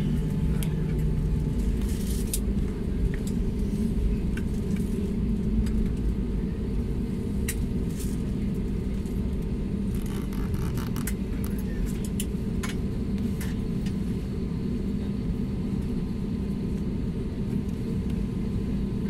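Cabin noise of an Airbus A320-family airliner taxiing after landing: a steady low rumble from the engines and wheels, with scattered light clicks and knocks.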